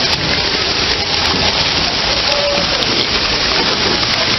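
Steady rushing and splashing of water in an indoor pool hall, from water spray jets falling onto the pool surface.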